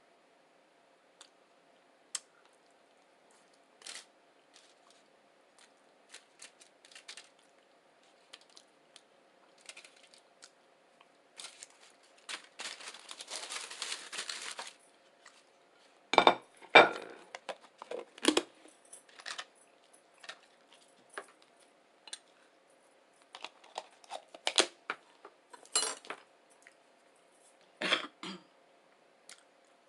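Close-miked eating of a breakfast burrito: scattered mouth clicks and wet smacks, a few seconds of rustling a little before the middle, and louder clusters of smacks later on, over a faint steady hum.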